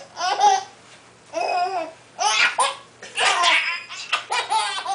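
A young child giggling in about five short, high-pitched bursts, roughly one a second, while she has the hiccups.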